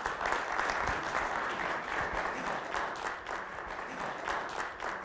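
A small seated audience clapping steadily to welcome a speaker. The clapping fades out at the end as a man begins to speak.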